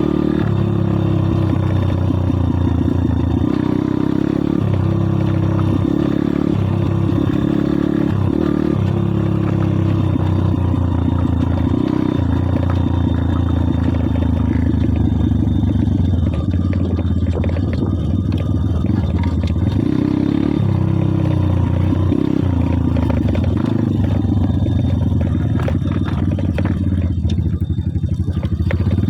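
Kayo pit bike's single-cylinder four-stroke engine running while riding, its pitch stepping up and down every second or two in the first ten seconds and again about two-thirds of the way through, steadier in between.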